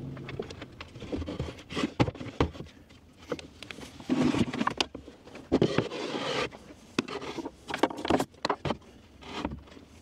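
Wooden mounting board holding a router and power supply being fitted into a plywood seat compartment: irregular sharp knocks and clicks of wood on wood, with a few longer scrapes about halfway through.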